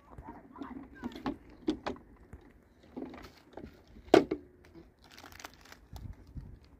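Light clinks and knocks from a playground swing's chains and plastic bucket seat as a child climbs in and pulls the harness down. One sharp, loud knock comes about four seconds in.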